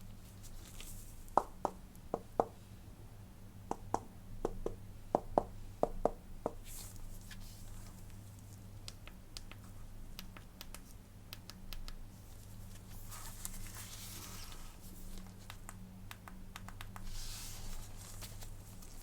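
Hands handling a smartphone and its packaging: a run of about a dozen light taps and clicks in the first several seconds, then soft rustling and faint ticks. A low steady hum runs underneath.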